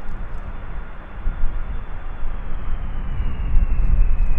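Jet engines of an Airbus A300-600 freighter on short final for landing, a high whine that slowly falls in pitch in the second half and grows louder as the aircraft nears. Heavy gusty wind buffets the microphone underneath.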